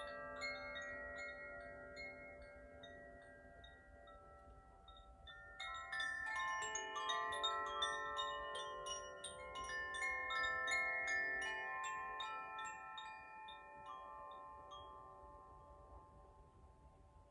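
French tuned wind chimes tinkling as they are swayed, many bright bell-like tones ringing on and overlapping. The first cluster fades away, a fresh flurry of strikes starts about five seconds in, then slowly dies down.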